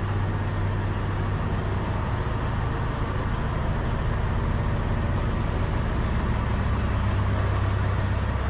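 Diesel engines of a Siemens Desiro diesel multiple unit idling, a steady low drone.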